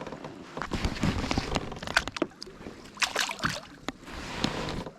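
Clicks, knocks and rustling of gear being handled on a fishing kayak, with some water sloshing.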